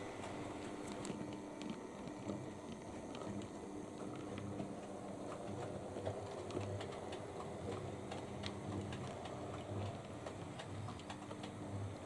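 Model railway goods train running along the track: a steady low motor hum with many small irregular clicks from the wheels crossing rail joints.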